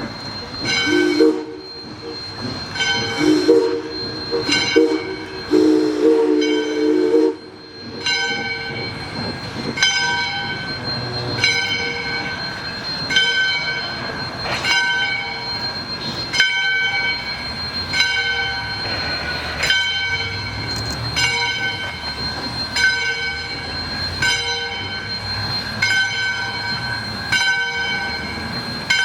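Steam locomotive (ALCO 2-8-2 Mikado No. 40) sounding its whistle in three blasts over the first seven seconds, while its bell rings steadily about once a second throughout.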